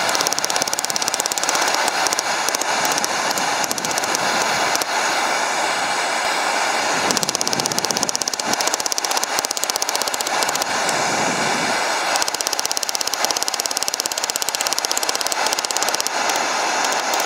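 Hand hammer striking hot steel bar stock on a steel I-beam anvil: a steady run of rapid, sharp metallic blows, drawing out a taper on a bolt-jaw tong blank.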